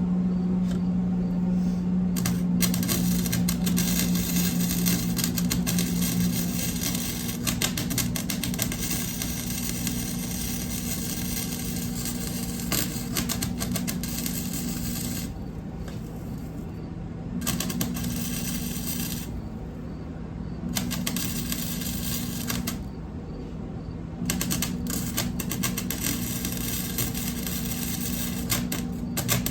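Electric arc welder crackling in runs of several seconds with short pauses between, over a steady low hum: tacking and running weld beads to join an exhaust flange to a muffler.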